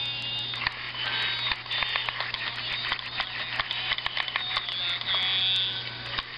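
Small electric motor and plastic gear train in the head mechanism of a StoryMagic Big Bird talking toy running with a steady buzzing whir and scattered clicks, dipping briefly near the end.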